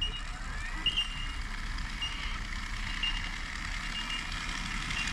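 Short high electronic beeps repeating about once a second over a steady hiss, with a whine rising in pitch during the first second.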